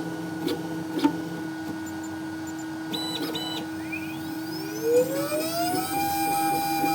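Small CNC milling machine: a steady hum with a few clicks and two short beeps about three seconds in, then the spindle motor spinning up in a rising whine that levels off into a steady high whine about six seconds in.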